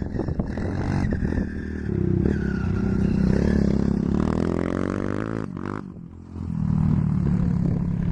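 Honda CRF230 dirt bike's four-stroke single-cylinder engine under throttle on a motocross track. The pitch climbs for a few seconds, drops off the throttle about five and a half seconds in, and pulls again about a second later.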